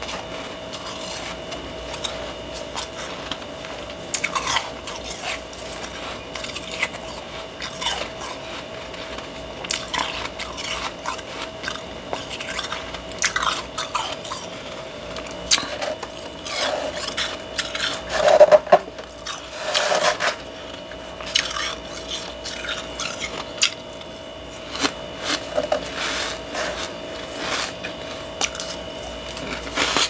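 Thick, powdery freezer frost crunching as a hand digs and scoops into it: a run of irregular crisp crunches, loudest a little past the middle, over a steady thin hum.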